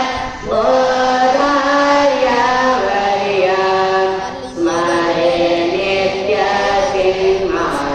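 A large group chanting an evening prayer in unison, holding long sung notes that step up and down in pitch, with two short breaks for breath, about half a second and four and a half seconds in.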